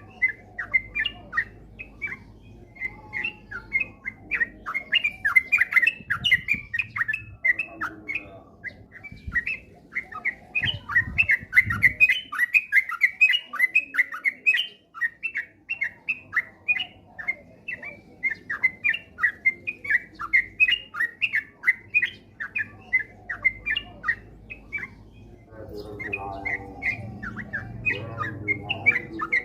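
Yellow-vented bulbul (cucak trucuk) singing in fast, unbroken runs of short chirps, the rapid rolling song that keepers call 'ropel'. A lower, softer warbling joins in near the end.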